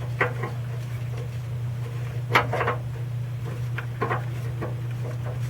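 Scattered small clicks and scrapes of hand tools and metal parts being handled while the dipstick tube adapter nut is threaded on, with the sharpest click about two and a half seconds in. A steady low hum runs underneath.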